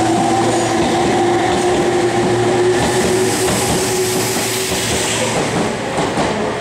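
Meitetsu 3500-series electric commuter train moving out along the platform, its traction motors giving a steady whine over wheel rumble and clatter. The whine fades about five seconds in.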